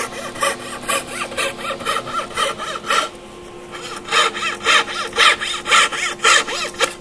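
Fine saw blade in a marquetry donkey's saw frame cutting by hand through a packet of veneer: quick, even rasping strokes about three a second, a short pause about three seconds in, then the sawing resumes a little faster.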